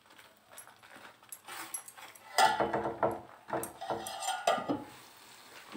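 A steel lid being set over a kadhai of simmering masala gravy, with light metal clinks and scraping. A few short pitched squeal-like sounds come in the second half.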